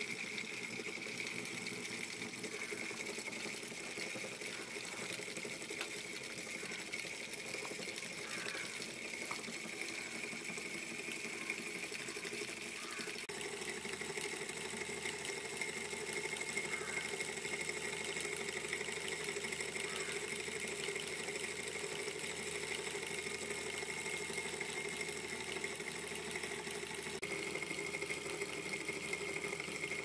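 Small battery-powered DC motor spinning a washing machine motor through a rubber belt, a steady whine with a lower hum. Its tone shifts slightly partway through.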